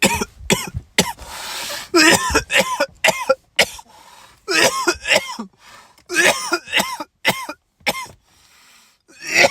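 A man's coughing fit from smoking a joint: repeated hacking, throaty coughs in clusters with short gaps between them, and a long rasping breath about a second in.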